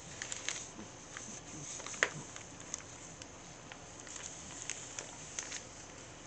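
A young domestic cat purring while it rolls on a bathroom floor, with scattered light clicks and rustles as its body moves on the floor, the sharpest click about two seconds in.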